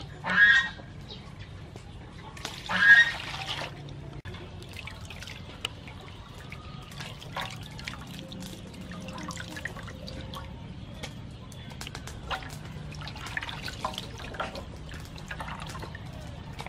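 Hands squeezing and rinsing shelled clam meat in a basin of water, with wet splashing, squelching and water dripping and trickling back into the basin. Two short, loud high-pitched calls come in the first few seconds.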